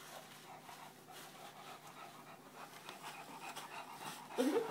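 English bulldog panting, faint and steady, with a short louder sound just before the end.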